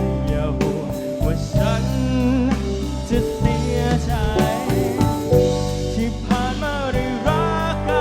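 A band plays a Thai pop ballad: drum kit and bass under a melody line that wavers with vibrato.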